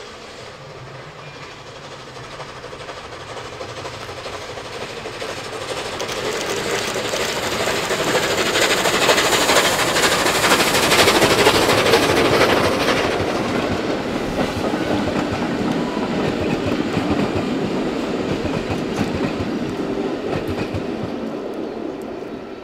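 Steam locomotive hauling a short train past, its exhaust beats and wheels clattering over the rails. It grows louder as it approaches, is loudest about halfway as it passes, then fades as the wagons roll by and the train moves off.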